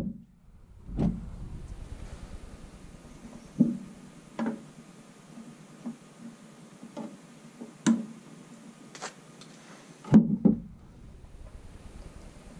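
Scattered light clicks and knocks from hands handling and twisting spliced wires at a pickup's tail-light wiring, about six in all, the loudest about ten seconds in, over a faint steady hum.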